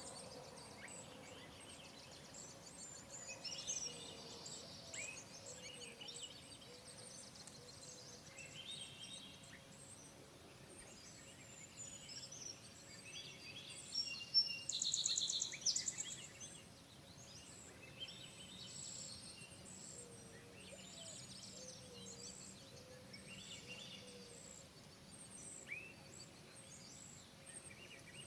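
Songbirds chirping and singing in short repeated phrases of rapid high trills, with a louder fast trill about halfway through.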